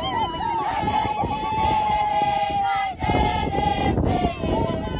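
A group of women singing a traditional Zulu song together, with a high note held for about the first three seconds, then shorter, broken phrases.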